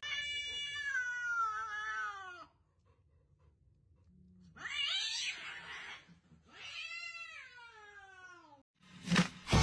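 Cat meme sound clips of cats vocalising: a long meow that falls in pitch, a harsher, raspy yowl about halfway, and another falling meow near the end.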